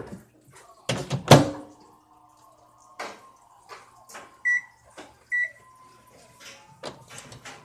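Microwave oven being loaded and set: the door shuts with a clunk about a second in, then a few light taps on the control panel and two short keypad beeps about a second apart.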